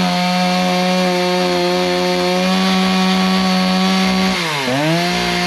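Chainsaw running at high revs while cutting through a black oak log. Its pitch holds steady, then dips sharply and climbs straight back up near the end.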